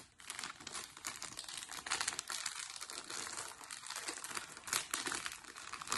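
Clear plastic poly bag crinkling as hands handle it and work it open, a dense run of small crackles.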